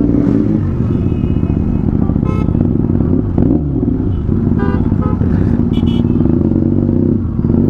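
Motorcycle engine running steadily under the rider, its pitch rising and falling as the throttle is worked and dipping briefly near the end. Short horn toots from other traffic sound a little past two seconds and again around five to six seconds in.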